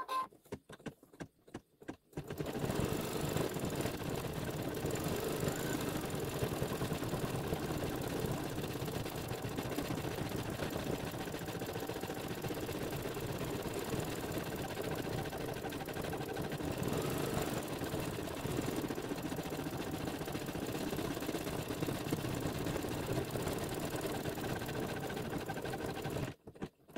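Embroidery machine stitching a satin-stitch edge, a steady fast needle run that starts about two seconds in and stops just before the end.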